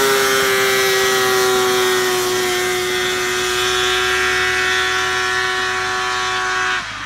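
Three-cylinder two-stroke engine of a 1996 Polaris XLT 580 snowmobile, fitted in a go-kart, held at high revs in a steady high-pitched note whose pitch eases down slightly as the kart pulls away. The sound cuts off suddenly near the end.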